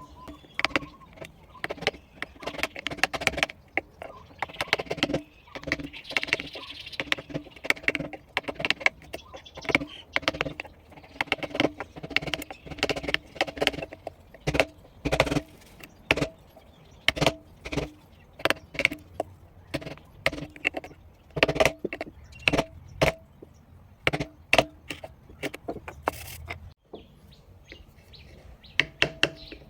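Mallet tapping a V-chisel through wood: quick runs of sharp taps, each with a short ring, broken by short pauses.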